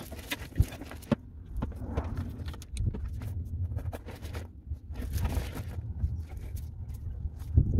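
Metal chain of an oil filter wrench clinking and scraping against a canister oil filter, with a few sharp clicks, over a steady low rumble.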